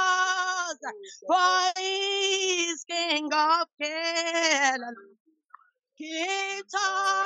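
A woman singing a gospel worship song in long held phrases, with a short pause about five seconds in.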